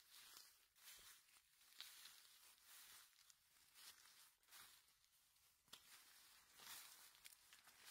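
Near silence, with faint, irregular rustling.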